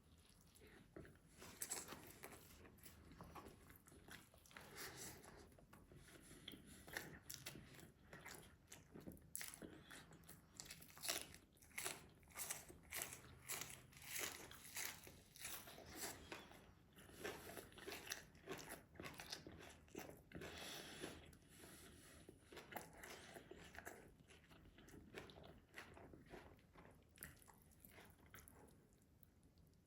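Close-miked eating of rice and meat: chewing and biting, with many short, sharp mouth sounds and clicks. They come thickest in the middle and thin out near the end.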